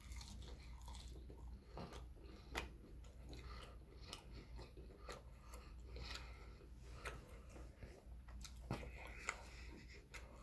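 Faint, close-up chewing of a bite of fried chicken, with scattered small mouth clicks.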